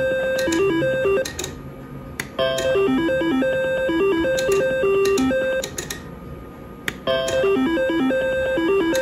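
IGT Double Gold reel slot machine playing its beeping electronic spin melody while the reels spin, with sharp clicks. The tune breaks off as a spin ends about a second in and again at about six seconds, and starts over with new spins about two and a half and seven seconds in.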